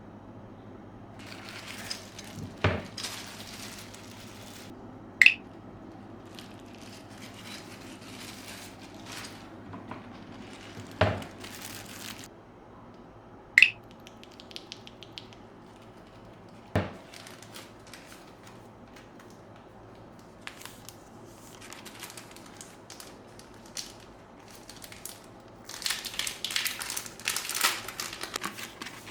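Unboxing handling of a mechanical keyboard and its packaging: scattered sharp clicks and a few dull knocks, then a stretch of plastic crinkling near the end.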